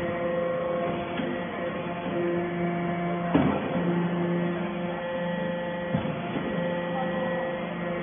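Hydraulic motor-pump unit of an aluminium-chip briquetting press running with a steady hum. A higher tone comes and goes over it. A sharp clunk comes about three and a half seconds in and a lighter knock near six seconds.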